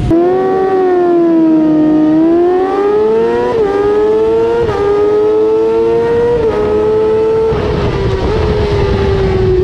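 Racing motorcycle engine from a 600 supersport race bike, at high revs under hard acceleration. Its pitch climbs in each gear and dips briefly at each of several quick upshifts, then eases down slowly near the end.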